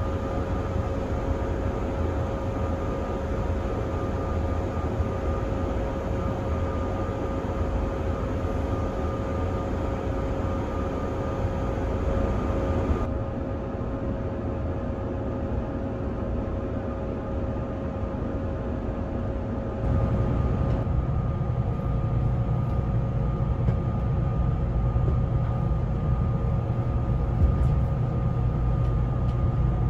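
Steady hum and whine inside the passenger car of a stationary Kintetsu 30000 series Vista Car train, from its onboard equipment, with two steady tones over a low rumble. The sound drops slightly about 13 seconds in and comes back louder about 20 seconds in, with a stronger deep hum from then on.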